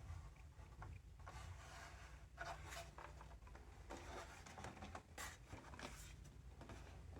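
Faint rustling and scraping of things being handled, in short irregular bursts.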